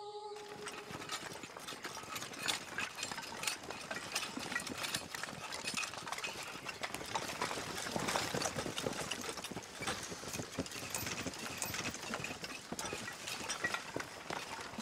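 Footsteps of a group of soldiers hurrying through undergrowth, with rustling brush and rattling kit: a dense, irregular run of small knocks and crunches.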